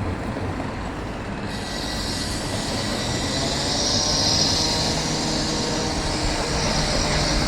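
A rail vehicle running past: a steady rumble with a high hiss of the wheels on the rails coming in about a second and a half in and holding.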